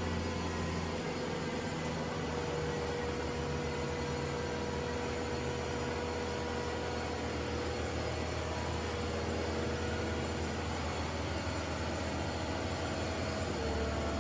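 Compact track loader with a Cat HM415 mulcher attachment, running steadily: a low engine hum with a faint steady whine over it. The low hum changes pitch about a second in and again near the end.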